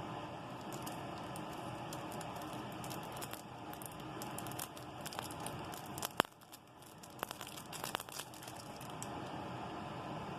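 Retail software packaging being handled and torn open: crinkling and tearing with scattered sharp clicks, one much louder about six seconds in, over a steady background hiss.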